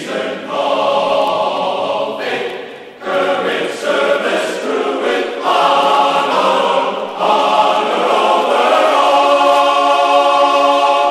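Background music of sustained, choir-like chords that change every second or two.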